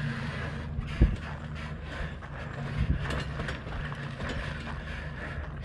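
Class C motorhome creeping along a rutted dirt track, its engine running with a steady low hum and the body rattling, with two dull thumps about a second in and just before three seconds.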